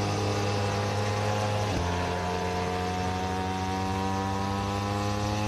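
Pramac Ducati Desmosedici GP24 MotoGP bike's V4 engine running at high revs on board. The note breaks briefly about two seconds in, then rises slowly in pitch.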